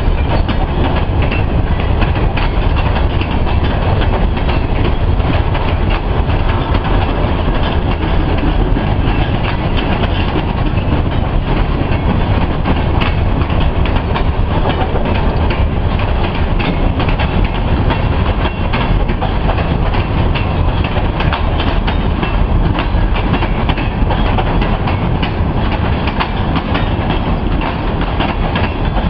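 Freight train cars rolling past close by: a steady heavy rumble with the continual clacking and squeal-free rattle of steel wheels over the rail joints.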